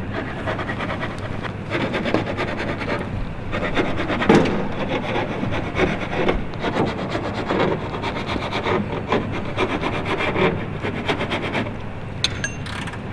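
A screwdriver scraping and grating against worn screw heads in the metal skin of an aircraft's turret fairing, in irregular rasping strokes. Near the end comes a brief high metallic squeak.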